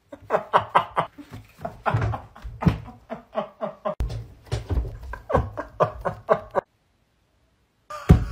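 Helpless, uncontrollable laughter: a person laughing hard in rapid repeated bursts, several a second. It cuts off suddenly about two-thirds of the way through, and starts again briefly near the end.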